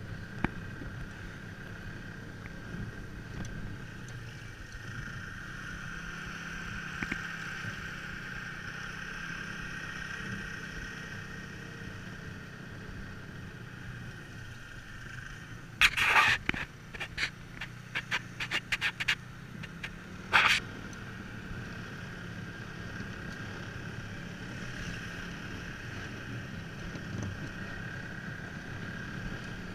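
Dog sled runners scraping and hissing steadily over a packed snow trail, with a short cluster of louder knocks and scrapes about halfway through and one more a few seconds later.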